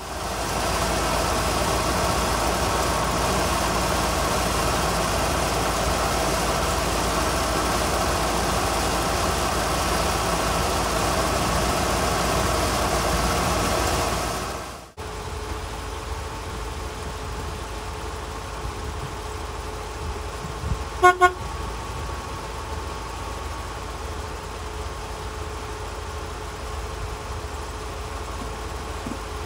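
1986 Ford F-150's V8 idling steadily with the hood open, heard close over the engine bay and then more quietly from beside the truck after about fifteen seconds. About two-thirds of the way through, a horn toots twice in quick succession.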